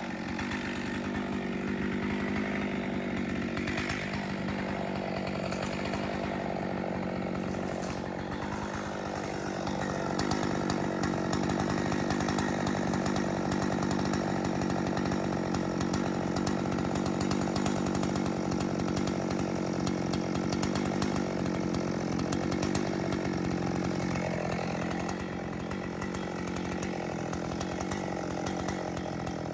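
Chainsaw running at a steady high speed, cutting into a dead ash log, with the pitch holding even and the level rising a little in the middle.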